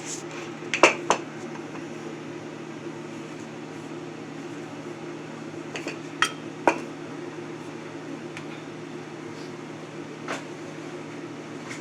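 Steady low hum of a kitchen appliance, with a few sharp clinks of kitchenware: two about a second in, two more around six seconds in, and a lighter one near the end.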